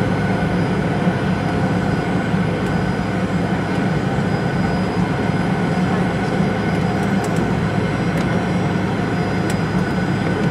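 Inside the cabin of a Fokker 70, its rear-mounted Rolls-Royce Tay turbofans running steadily as the jet rolls on the runway: a steady hum with a thin, constant whine above it.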